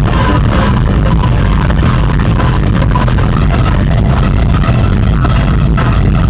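Live rock band playing loudly, with a heavy, dense bass end, heard through a distorted, overloaded crowd recording.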